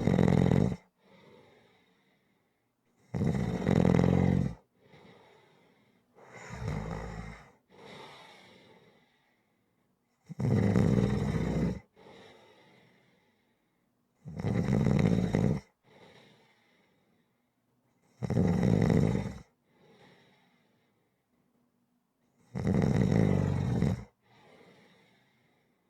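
Snoring in a steady rhythm: a loud snore on each breath in, about every four seconds, each followed by a quieter breath out. The snore about seven seconds in is weaker than the rest.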